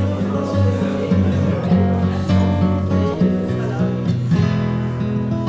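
Background music: acoustic guitar strummed and picked over a steady bass line.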